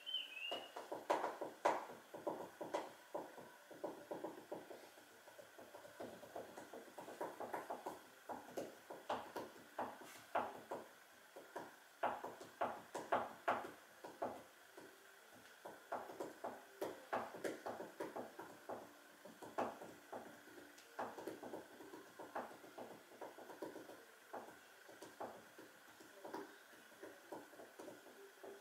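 Irregular light clicks and taps, coming in clusters of several a second, over a faint steady high hum.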